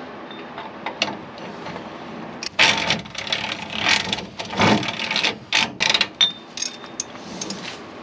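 Ratchet wrench clicking in uneven strokes as the rear hub nut on a Sterling 10.25 axle is tightened to seat the wheel bearings. Fairly quiet at first, then a run of loud ratcheting strokes from about two and a half seconds in.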